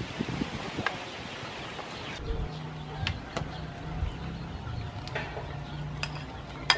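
A metal ladle knocking and clinking several times against an aluminium pot and a serving bowl as soup is ladled out. Under it runs an even hiss for the first two seconds, then a steady low hum.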